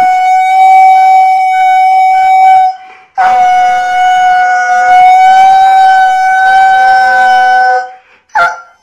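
A husky-type dog howling: two long, steady, loud howls, the first about three seconds long and the second, after a short breath, about five seconds.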